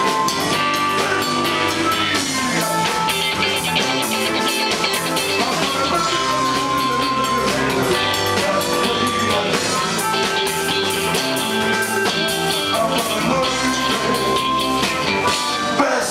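Live band playing an instrumental passage of a blues number: electric bass, drum kit and electric guitars, with an amplified blues harmonica played into a hand-held microphone carrying long held notes.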